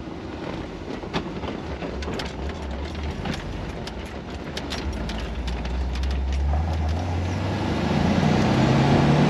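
Swapped-in LS1 V8 engine of a Jeep CJ, running as the Jeep is driven along. The engine note grows louder and higher over the last few seconds as it picks up speed.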